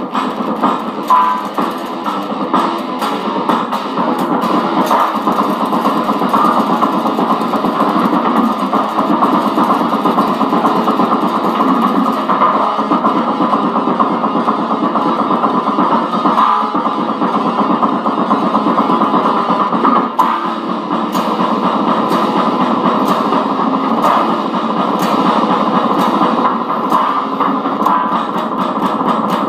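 Les Paul-style electric guitar played through a Fender amplifier, picked and strummed continuously.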